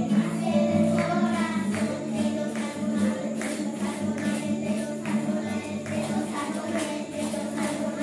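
Live music: a group of children singing to acoustic guitar, with a light percussion beat of about two strokes a second.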